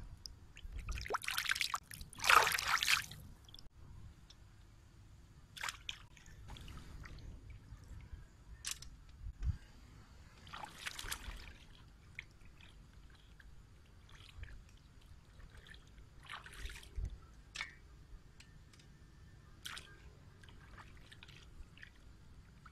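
Hands swishing raw chicken feet in shallow river water, rinsing them. A loud burst of splashing about two seconds in, then scattered quieter splashes and drips.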